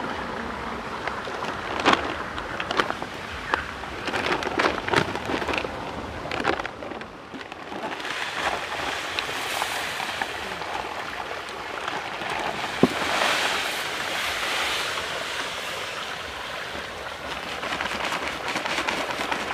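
Dry fish-feed pellets pouring from a sack into a large aluminium basin, a steady granular hiss. Before it, in the first several seconds, come scattered sharp clicks and knocks.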